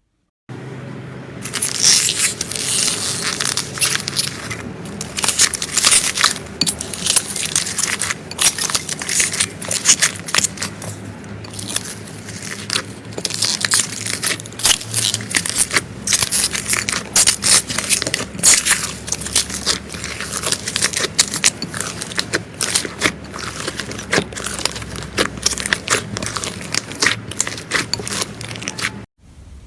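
Slime being squeezed and pressed close to the microphone, giving a dense, continuous crackling and crunching of many small clicks. It starts sharply just after the beginning and cuts off suddenly near the end.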